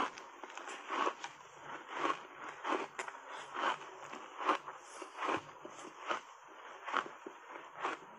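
Chewing of refrozen ice coated thickly in matcha powder: a steady run of crunches, about one to two a second.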